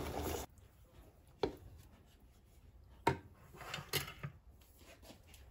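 Baked beans sliding from a can into a hot pot with a steady sizzling hiss that cuts off suddenly about half a second in, followed by a few faint, sharp wooden knocks.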